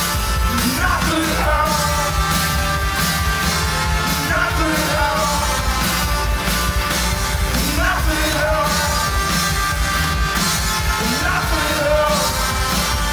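Rock music with a sung vocal over guitars and drums, played as the video's soundtrack.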